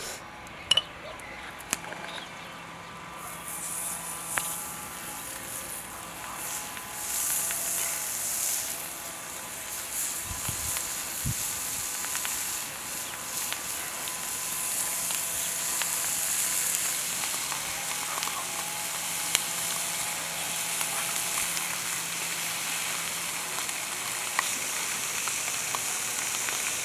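Whole mackerel sizzling as they are laid one by one on a salt-covered iron disc over a wood fire. The high hiss sets in about three seconds in and grows louder as more fish go down, after a few sharp clicks at the start.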